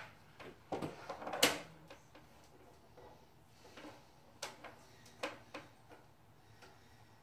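Scattered knocks and clicks of small household objects being picked up, moved and set down on a bedside table during tidying. The loudest and longest comes about a second and a half in, and a few sharper clicks follow later.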